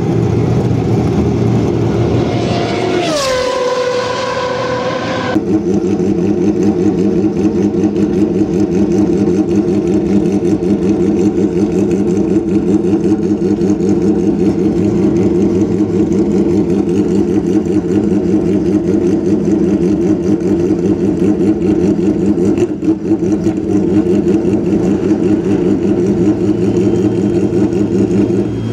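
Single-seater racing car engine rising sharply in revs about three seconds in as the car pulls away. After a sudden cut, a second single-seater's engine idles steadily with a fast, even pulse.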